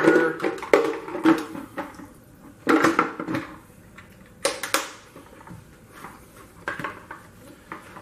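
Clear plastic dirty-water tank of a Hoover FloorMate Edge floor cleaner clattering and clicking as it is handled at a sink: a string of irregular hollow knocks, the loudest near the start, about three seconds in and about four and a half seconds in.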